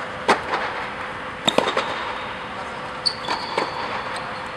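Tennis ball struck by rackets and bouncing on an indoor hard court during a baseline rally: sharp pops about every one to two seconds, some in quick pairs, over a steady hall hum. A short high squeak sounds about three seconds in.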